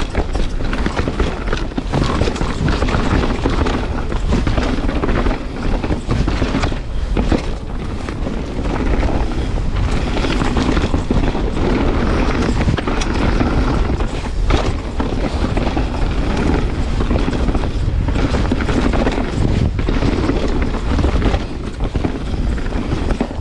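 Canyon Spectral 29 full-suspension mountain bike descending a rough dirt trail at speed: tyre roar and rattles and knocks from the bike over bumps, under heavy wind rumble on the microphone.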